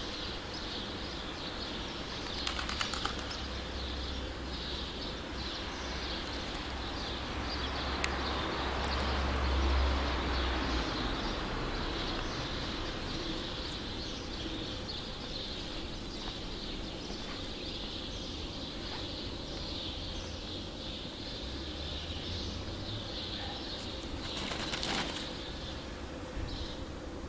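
Wind buffeting the microphone with a low rumble, strongest in the first ten seconds and again about twenty seconds in, while small birds chirp in the background.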